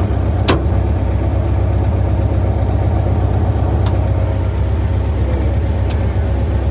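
A small car engine idling steadily, a low even rumble, with one sharp click about half a second in.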